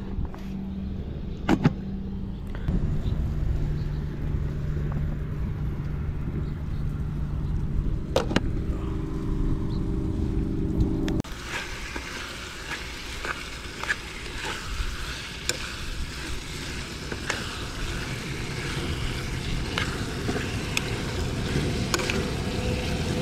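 A low, steady rumble. About eleven seconds in it changes abruptly to chicken stir-frying in a small pan on a portable butane stove: an even sizzling hiss, with a spoon scraping and clicking against the pan.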